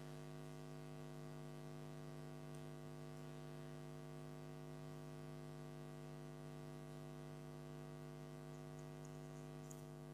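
A faint, steady electrical hum made of many evenly spaced overtones, unchanging throughout.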